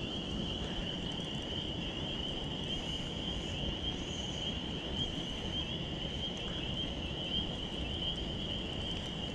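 Steady, high-pitched insect chorus trilling without a break, over a low rushing outdoor noise.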